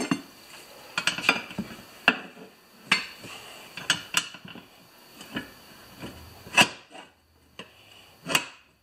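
Steel tire iron levering the bead of a small 15x6 yard tractor tire onto its rim: irregular metal clicks and scrapes with rubber rubbing, and two sharper knocks near the end.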